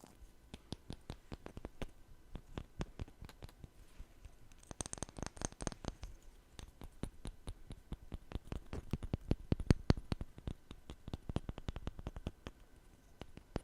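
ASMR tapping: quick, light taps, several a second, in an uneven patter that grows denser and louder past the middle. A brief brighter, higher sound comes in about five seconds in.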